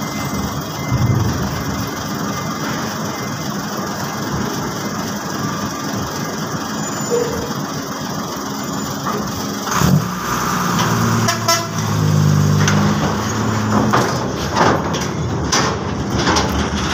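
Diesel cargo truck driving onto a ferry's steel-grid car deck. Its engine works under load from about ten seconds in, with sharp knocks as it rolls over the deck plates, over the steady hum of the ship's machinery.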